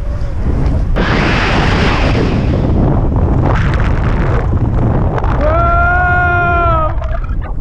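Heavy wind buffeting the microphone during a wingsuit flight, with a loud rush of noise about a second in as the parachute deploys and opens. Near the end comes a long, steady held yell.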